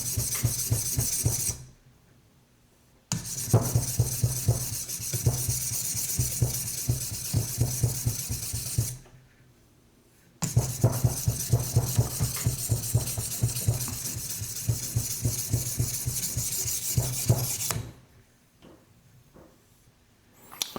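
TSProf Alpha diamond stone scraping along a knife edge in quick back-and-forth strokes, working to raise a burr. The stroking comes in three runs, broken by a short pause about two seconds in and another near nine seconds in, and stops a few seconds before the end.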